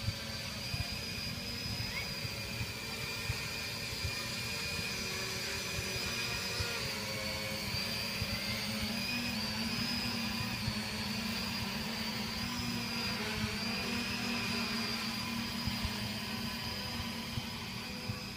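Small quadcopter drone's electric motors and propellers whining with a high, slightly wavering pitch. It grows louder as the drone flies close and eases off near the end as it flies away.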